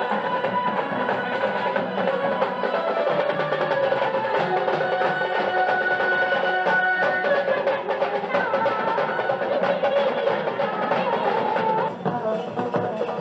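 Gujarati street wedding band music played back over loudspeakers: steady drumming under a held melody line. The level drops briefly near the end.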